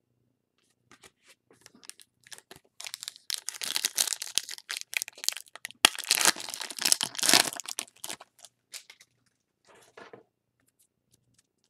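A foil trading-card pack wrapper being torn open and crinkled by hand. A few soft handling clicks come first, then a dense crackling tear starts about three seconds in and runs for several seconds, loudest past the middle, before thinning to a few faint rustles.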